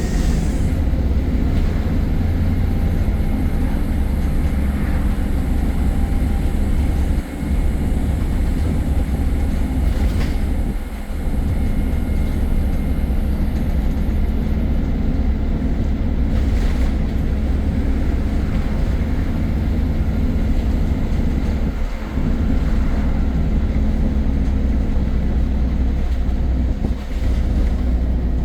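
Inside a MAN E300 single-deck bus on the move: a steady deep rumble of engine and road, with a few short dips and the odd knock.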